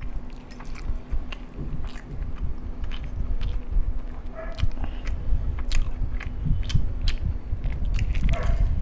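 Chewing a mouthful of masala rice, with many small wet mouth clicks, then biting into a hot, crispy fried chicken drumstick near the end.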